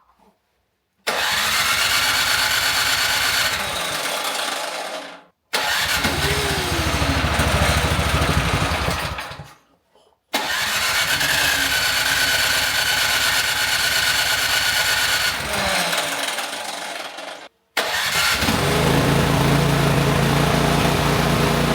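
Snowblower's small gasoline engine running in four short clips: in the first three it runs a few seconds and then dies away, in the last it keeps running steadily. It runs once bad gas has been drained from the carburetor.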